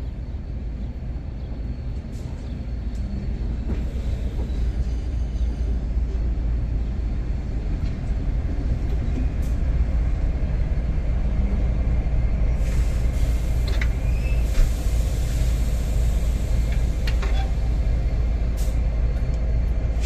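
Diesel freight locomotive approaching slowly, its deep engine rumble growing louder. From about two-thirds of the way through comes a loud hiss of air from the brakes, with a few sharp clicks.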